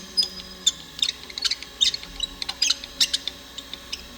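Elevation handwheel of an Okamoto Grind-X 618B hand surface grinder being turned, giving irregular short squeaky clicks, two or three a second, that stop about a second before the end.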